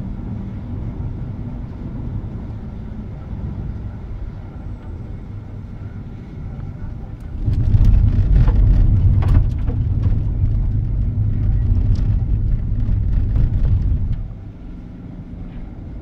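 Car road noise heard from inside the cabin: a steady low tyre rumble that turns much louder about halfway through as the car runs onto unpaved gravel, with small stones ticking and pinging against the car, then drops back to a quieter rumble near the end on smooth asphalt.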